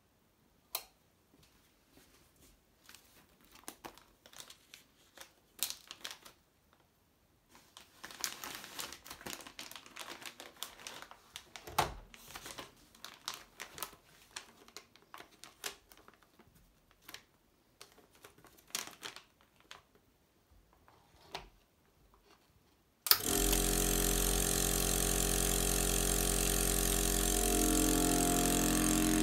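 Plastic vacuum bag crinkling and rustling as it is handled and laid across the sealing bar. After about twenty seconds the Reber Professional 30 vacuum sealer's suction pump starts with a click and runs steadily, its tone shifting slightly near the end as it draws the air out of the bag.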